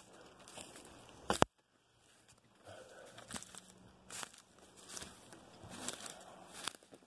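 Footsteps crunching through dry leaves and twigs, about one step a second, with one louder knock about a second and a half in.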